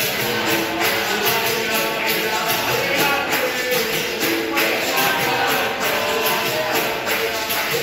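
Capoeira roda music: a pandeiro beats a steady, even rhythm while voices sing over it.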